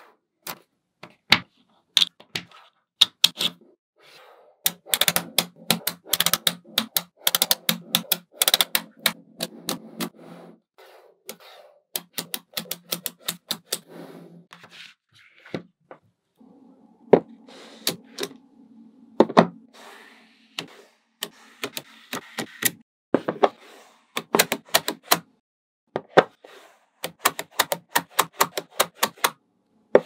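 Small magnetic balls clicking and snapping together, in irregular runs of sharp clicks with short pauses between, as pieces are joined one after another.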